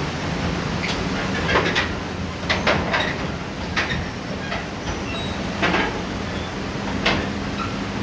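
Irregular sharp clacks of river stones knocking together, about eight over several seconds, over a steady rush of flowing river water.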